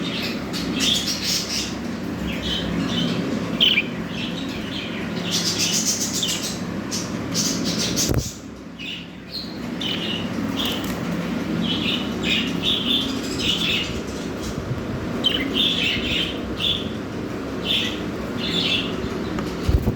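A flock of budgerigars chirping and chattering: a constant run of short, high chirps that briefly thins out about eight seconds in.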